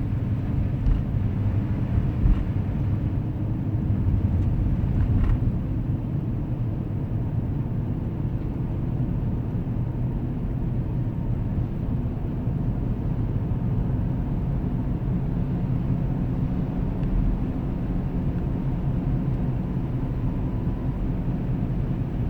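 Steady low rumble of road and engine noise inside the cabin of a 2010 Acura MDX driving slowly over a snowy, icy road.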